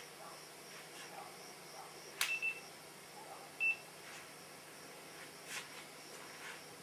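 A click, then two short high electronic beeps at the same pitch about a second apart, a couple of seconds in, over a faint steady hiss.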